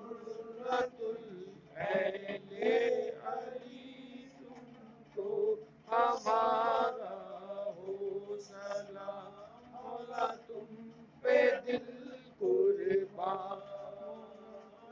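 Men's voices chanting a devotional salaam to Imam Hussain in sung phrases, with short pauses between lines.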